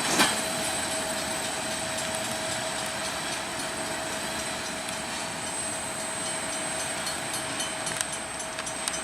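Housatonic Railroad freight train rolling past: a steady rumble of wheels on rail, with two sharp clacks right at the start and a few lighter ticks later. A thin, steady high tone runs underneath.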